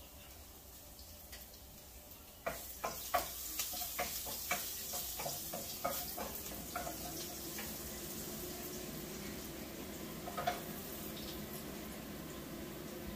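Food sizzling in hot oil in a frying pan, the sizzle starting suddenly about two and a half seconds in, with a spatula clacking and scraping against the pan as it is stirred for the next few seconds; the sizzle then carries on steadily.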